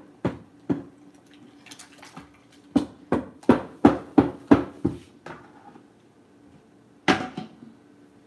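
Long metal spoon knocking against the sides of a large plastic container while stirring a thick fruit-and-milk drink: two knocks, a pause, a run of about eight knocks at roughly three a second, then one loud knock near the end.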